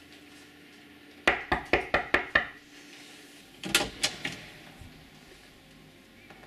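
About seven rapid knocks on a wooden door, then, about two seconds later, the metal lever handle and latch clicking as the door is opened.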